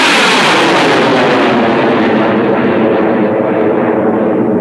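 Liquid-propellant rocket engine burning alcohol fuel with nitrous oxide oxidizer, firing at full thrust as the rocket climbs away just after liftoff. The roar is loud and steady, with tones sweeping downward through it, and its highest hiss thins out about two seconds in.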